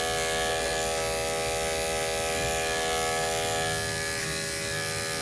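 Andis 5-speed corded electric dog clipper with a #10 blade running at a steady motor buzz while skimming fur on a small dog's face. The hum turns a little softer in the last second or so.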